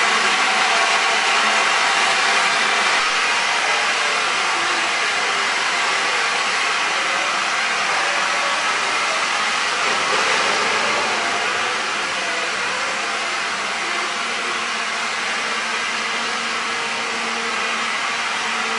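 Steam locomotive letting off a steady, loud hiss of steam, with no exhaust beat; it eases off a little in the second half.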